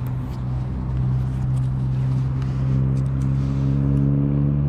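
An engine running at one steady, unchanging pitch, growing louder in the first second and then holding.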